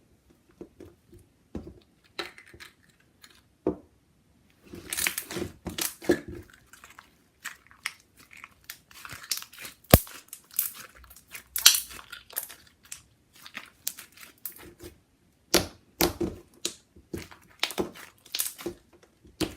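Thick, glossy slime being squeezed, pressed and stretched by hand, making irregular crackly pops, clicks and squelches.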